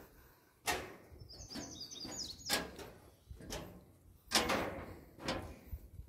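Footsteps on the observation tower's deck and stairs, about one a second. A small bird chirps a quick run of high notes about a second in.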